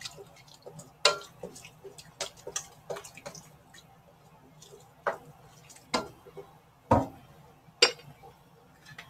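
A slotted spoon stirring cubed potatoes in broth in a stainless steel pot, knocking and scraping against the pan in irregular clicks and clacks, the sharpest knocks near the end as the spoon is set down.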